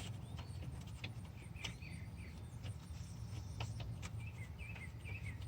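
Faint bird chirps in the background, a few short calls, with several light sharp clicks and a steady low hum underneath.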